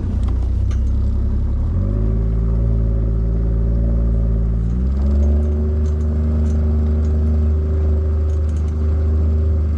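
Boat motor running under way, its pitch stepping up about two seconds in and again about five seconds in as the throttle is opened, then holding steady.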